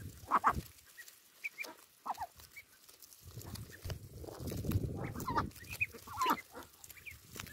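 Indian Runner ducklings peeping in short chirps while pecking and tearing at a bunch of lettuce held out by hand, their bills giving many sharp clicks among the leaves. A low rustle runs for a couple of seconds around the middle.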